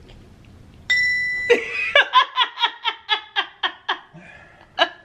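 A toy lie detector sounds a steady electronic tone about a second in, giving its verdict on an answer, and a woman then breaks into a long run of laughter, about four laughs a second.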